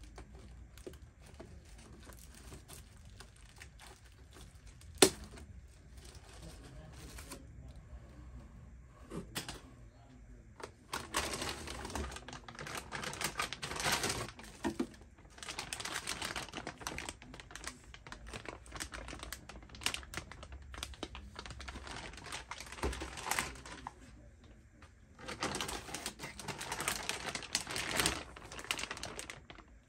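Plastic parts bags crinkling and rustling as they are handled and cut open with scissors, coming in several long bursts, with one sharp click about five seconds in.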